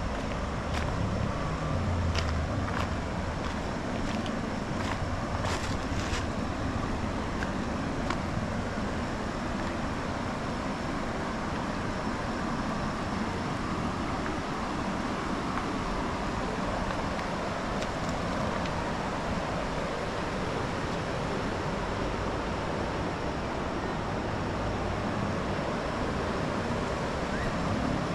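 Steady rushing of a shallow river flowing over its stony bed. A few sharp crunches of footsteps on loose river pebbles come in the first few seconds.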